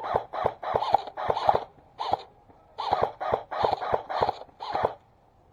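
Fast footsteps crunching on loose ground, about three steps a second, pausing briefly about two seconds in and stopping near the end.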